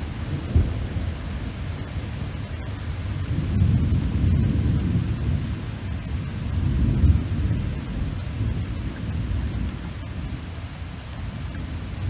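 Thunderstorm: a low, rolling thunder rumble that swells twice, around four and seven seconds in, over a faint steady hiss of rain.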